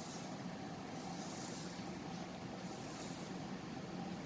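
Faint steady background hum and hiss, with no distinct events.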